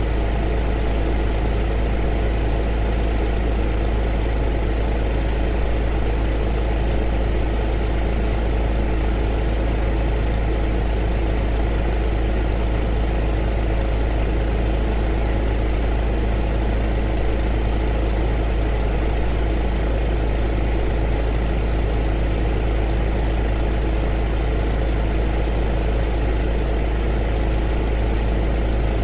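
Heater running steadily: an even whirring noise over a deep low hum, with a few faint steady tones and no change in pitch or level.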